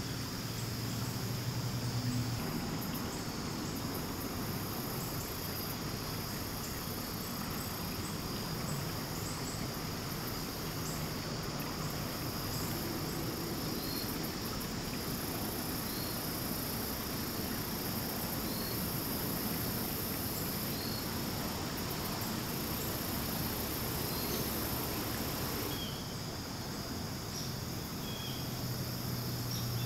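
A steady chorus of insects trilling at a high pitch, over an even wash of background noise. One layer of the chorus drops away near the end.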